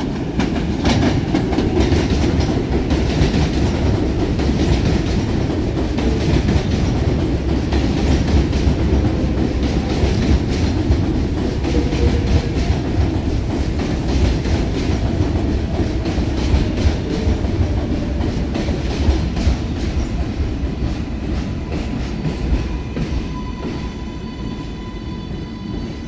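R188 subway trains running on the elevated track, wheels clattering over rail joints, one train leaving and another coming in. The noise eases off over the last few seconds as the arriving train slows.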